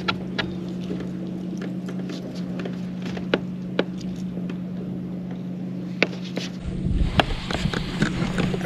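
Boat motor running with a steady low hum, with a few sharp clicks over it. About two-thirds of the way through, a rough low rumble joins in.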